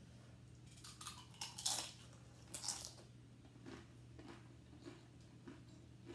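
Crunching bites of tortilla-chip nachos close to the microphone: a few sharp crunches in the first three seconds, then quieter regular chewing about twice a second.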